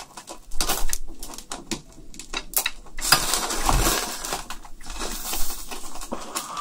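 Hanwoo beef sizzling and crackling on a small solid-fuel tabletop grill, with metal tongs clicking against the meat and grate as the pieces are turned and lifted.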